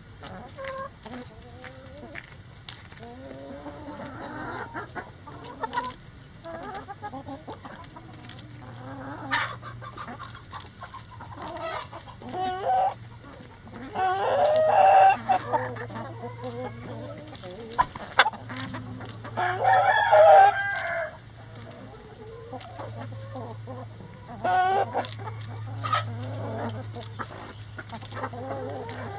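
A flock of backyard hens clucking steadily while pecking at a hanging cabbage, with scattered sharp pecking taps. Twice near the middle, about five seconds apart, a rooster crows loudly. A steady low hum sits underneath from about a quarter of the way in.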